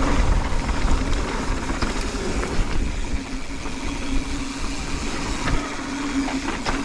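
Wind buffeting the camera microphone while a mountain bike descends a dirt trail at speed, knobby tyres rolling over packed dirt and loose stones, with a steady hum and a few short rattles from the bike.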